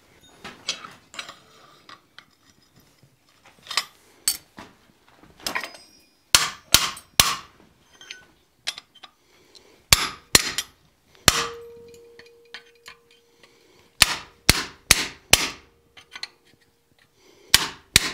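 Hammer blows on a hand-held chisel hot-cutting red-hot quarter-inch steel plate on an anvil: a few scattered knocks, then quick runs of three to five strikes with pauses between. After one blow near the middle a steady ring hangs on for several seconds.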